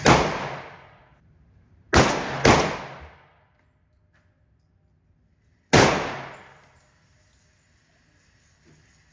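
Four gunshots in an indoor concrete range, each ringing out for about a second: one at the start, two in quick succession about two seconds in, and one more near six seconds.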